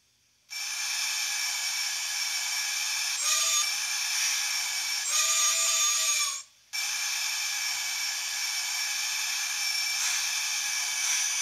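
Factory DCC sound decoder of a Mantua 0-6-0 saddle-tank model steam switcher, playing standing-locomotive steam sounds through its small speaker: a steady hiss switches on about half a second in. It is broken by two whistle blasts, a short one and then a longer one, and cuts out briefly before the hiss comes back.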